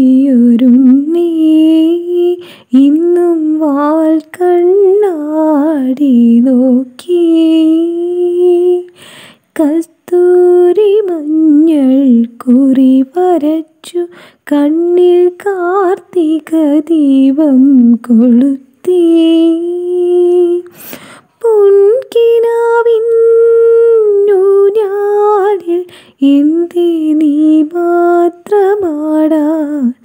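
Background music: a solo female voice humming a slow melody with vibrato, in phrases a few seconds long separated by short pauses.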